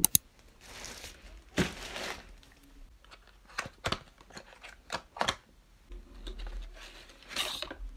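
Thin plastic bag rustling and crinkling in several short bursts as items are taken out of it, with a few sharp clicks and taps as a cardboard product box is handled.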